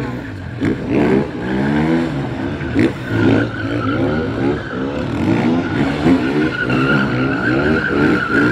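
Motorcycle engine revving up and down again and again while the bike circles and drifts on asphalt, with a steady high tyre squeal.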